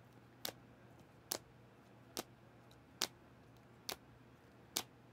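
Steady, evenly spaced sharp ticking, a little faster than one tick a second.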